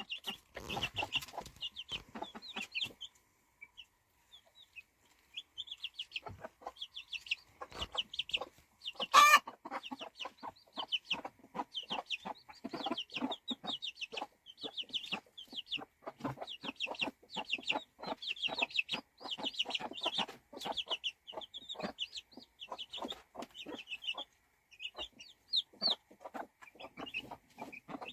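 Baby chicks peeping: many short, high chirps in quick runs, with a brief lull a few seconds in. Small clicks and taps run through the peeping, and one sharp knock about nine seconds in is the loudest sound.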